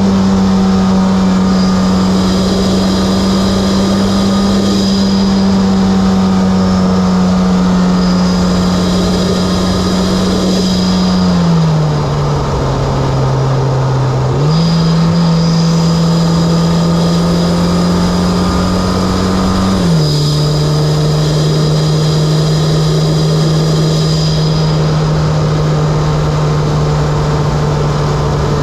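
Mitsubishi Lancer Evolution X's turbocharged 2.0-litre four-cylinder engine, fitted with an aftermarket Injen intake and HKS exhaust, running steadily under way. A faint high whistle comes and goes. The engine note drops in pitch about twelve seconds in, rises again about two seconds later, and drops again around twenty seconds in.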